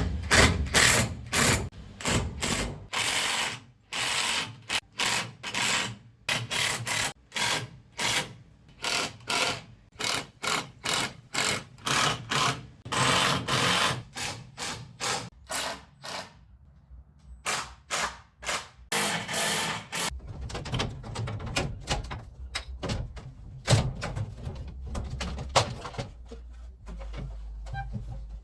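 A power tool running in many short, loud bursts, about one to two a second, with a pause a little past the middle. Toward the end the bursts come fewer and weaker over a low steady hum.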